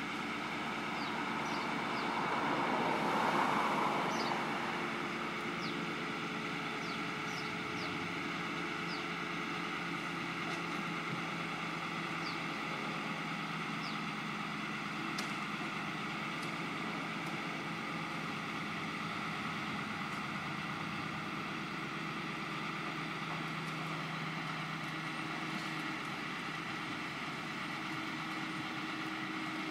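An engine running steadily, swelling briefly in loudness about three seconds in.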